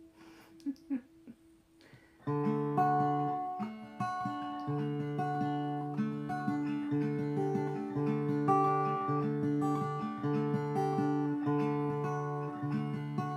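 Guitar played slowly, a repeating pattern of single plucked notes ringing over low held notes. It starts about two seconds in, after a short pause with a few faint finger or handling noises.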